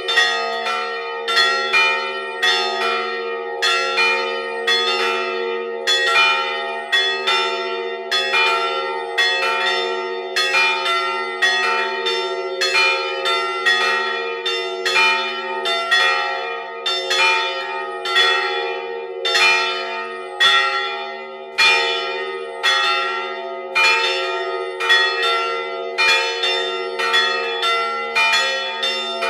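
Three bronze church bells swinging together in a full peal: a 258 kg bell tuned about B-flat (Prešov foundry, 1925), a 112 kg bell about E and a 90 kg bell about E-flat. Their clappers strike in an overlapping stream of roughly two strokes a second, over a steady low hum from the bells.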